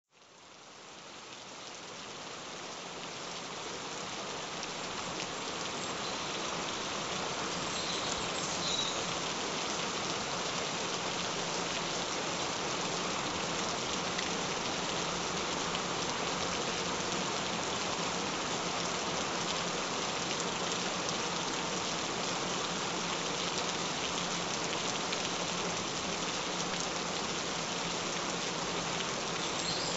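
Steady rain falling, an even hiss of drops that fades in over the first several seconds and then holds steady.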